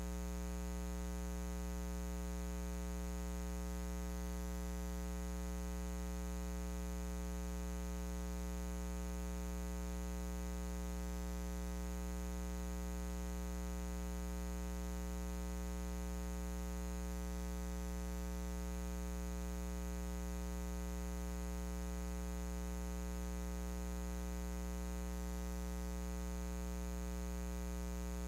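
Steady electrical mains hum with a stack of overtones, over a faint even hiss; it never changes.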